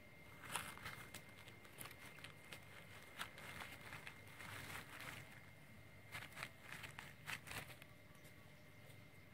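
Faint rustling and scattered light clicks of hands working over a charred roasted fish laid on a banana stem and leaves, with a faint steady high tone behind it.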